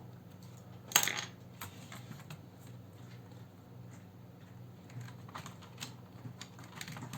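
Small plastic clicks and taps from handling a netbook's keyboard and its ribbon-cable latch during reassembly: one sharp click about a second in, then scattered lighter ticks, over a low steady hum.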